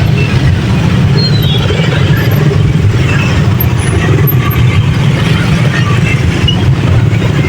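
Road vehicle engines running in traffic: a steady low rumble with no breaks.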